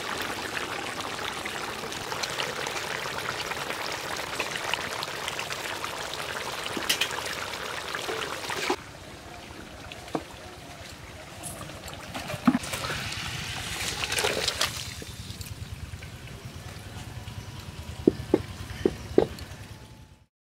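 Katla fish curry simmering in a pan, a steady bubbling hiss. About nine seconds in it cuts to a quieter background with a few knocks and metal clinks of cookware being handled.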